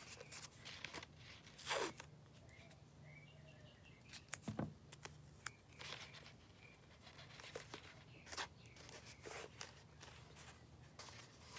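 Blue painter's tape being pulled, torn into strips and pressed over the open end of a cardboard paper-towel tube: scattered faint tearing crackles, rustles and small clicks, with a longer rip about two seconds in.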